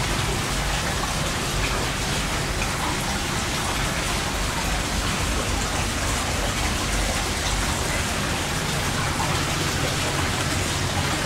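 Hot-spring water pouring steadily into an open-air rock bath, a continuous splashing rush.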